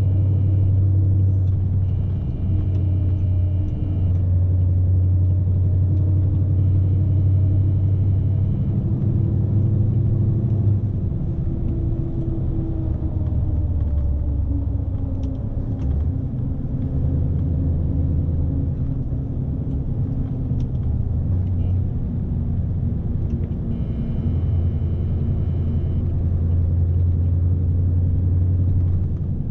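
Scania S520 truck's V8 diesel engine running under way, heard inside the cab as a steady low rumble; its pitch drops around the middle. A faint high tone comes and goes several times.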